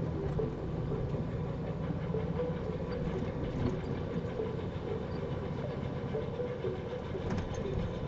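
Steady in-cabin road and engine rumble of a vehicle driving at moderate speed on a slushy, snow-covered highway.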